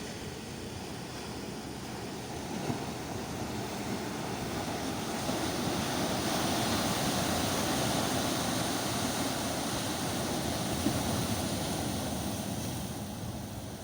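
Sea waves: the surf swells over several seconds, holds, then eases off near the end as the wave washes in and draws back.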